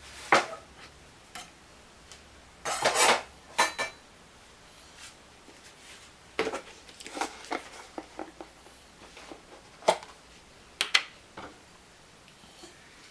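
Kitchen utensils and dishes clinking and knocking: scattered sharp taps, with a short run of clattering about three seconds in and a few more knocks near the end.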